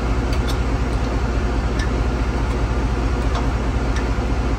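A diesel engine idling steadily, the Foden crane lorry's engine that holds the tank engine on its chains, with a few separate light metallic clicks from work on the engine mounting bolts.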